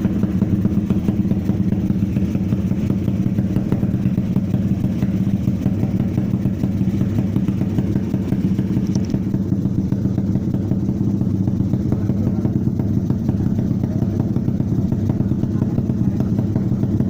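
Suzuki Satria FU motorcycle engine, built out to 200 cc, running steadily at a constant speed without revving.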